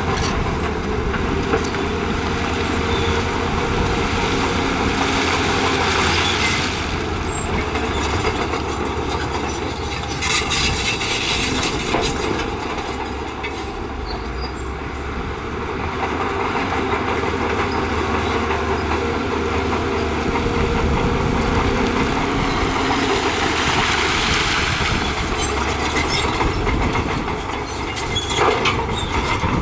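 Crawler bulldozer working, its diesel engine running steadily under load beneath a constant clanking and clatter of steel tracks and pushed rock. The clatter swells several times, and there are a few sharp knocks near the end.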